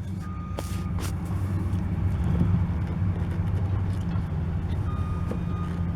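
A steady low engine-like hum, like a vehicle idling, with a couple of faint taps about a second in.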